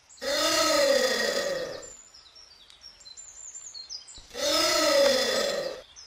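Giant anteater calling twice, each a long, loud call of about two seconds whose pitch rises and then falls, with the second coming about four seconds in. Faint high chirps sound between the calls.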